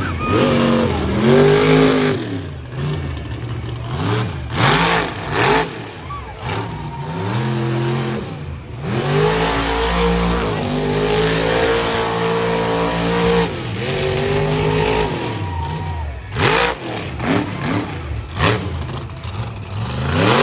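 Monster truck engine revving hard, its pitch climbing and dropping again and again, held high for several seconds near the middle.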